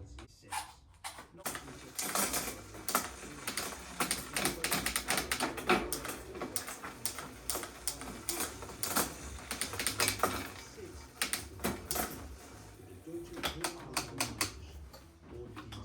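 Rapid, irregular mechanical clicking and rattling, strongest through the middle of the stretch and thinning out near the end.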